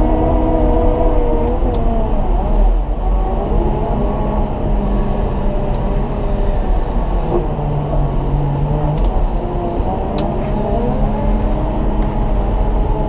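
Caterpillar 926M wheel loader's diesel engine running under load while pushing snow, a deep steady rumble whose pitch dips and then climbs again as the revs change.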